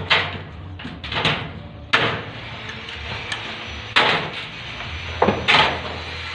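Hammering during ceiling framing work: about six irregular blows, each dying away quickly, over a steady low hum.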